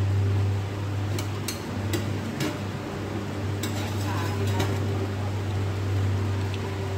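Steel kitchen utensils clinking: a spatula and lid knocking against a lidded steel kadai several times, and the lid lifted off near the end, over a steady low hum.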